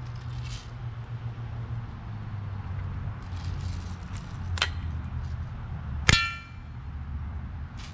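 Umarex Steel Storm CO2 BB pistol shooting at a body armor plate: a sharp snap a little past the middle, then about a second and a half later a louder hit that leaves the plate ringing with a metallic clang.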